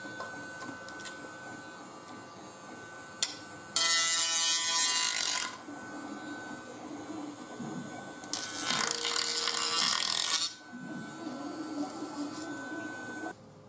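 Dremel rotary tool running with a steady high whine while burrs are ground off a 3D-printed ABS plastic part. Twice, about four seconds in and again around nine seconds, a louder grinding noise lasts a second or two as the bit works the plastic. The whine cuts off near the end.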